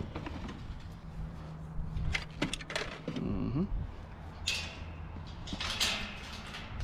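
Metal rattling and scraping as a galvanised mesh cage trailer's gate and latch are handled, with a few sharp knocks about two seconds in and longer rattling scrapes later on.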